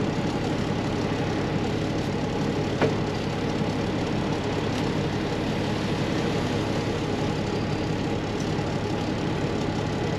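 Caterpillar C15 inline-six diesel in a Peterbilt 379 semi running steadily at a low, even speed. There is a single light click about three seconds in.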